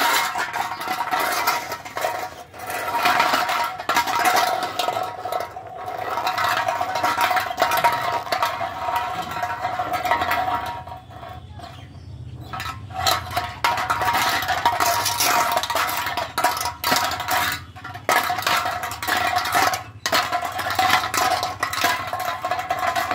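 The metal fitting of a dragged leash clinking and scraping on a concrete floor as a German Shepherd puppy plays, in many short irregular clicks over a steady hum.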